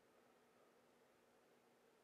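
Near silence: a faint, even background hiss.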